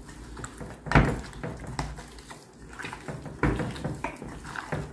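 Hands kneading raw beef chunks with ground spices in a glass bowl: soft wet squelching of the meat, with two sharp knocks against the bowl, about a second in and again about three and a half seconds in.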